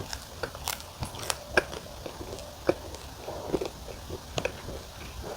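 Close-up chewing of the hard, chewy crust end of a Neapolitan wood-fired pizza, with sharp crunches every half second to second between softer wet mouth sounds.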